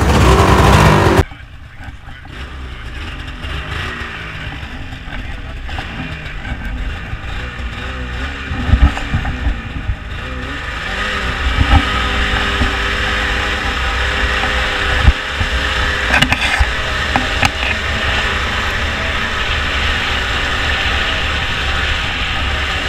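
Ski-Doo 600 RS snowmobile's two-stroke engine running as the sled is ridden across dry grass, its note climbing and then holding fairly steady. The sound is loud at first and drops suddenly about a second in, and a few sharp thumps come through, the strongest about fifteen seconds in.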